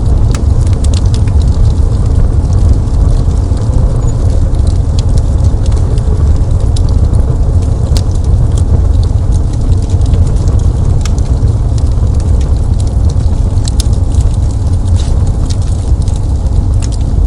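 Wood fire crackling, with many small irregular pops and snaps over a steady low rumble.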